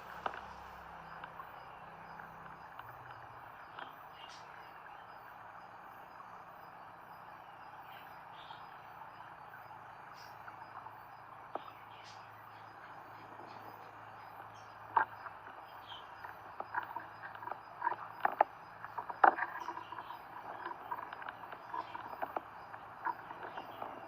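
Steady hiss of falling rain, with scattered sharp taps and clicks in the second half.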